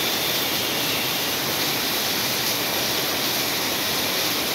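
Steady rain falling in a constant, even hiss.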